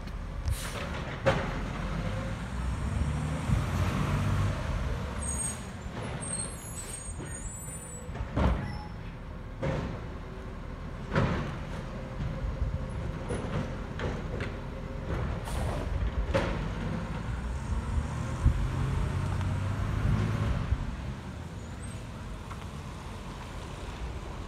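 Automated side-loading garbage truck at work: its engine runs and swells in revs twice while the side arm works. Several sharp bangs of carts being handled ring out along the way, with hissing air brakes as it stops and moves off.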